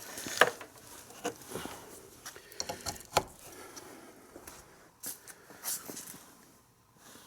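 Scattered clicks, knocks and rustling of objects being handled, with a few sharper taps about three seconds in and again around five to six seconds in; no engine running.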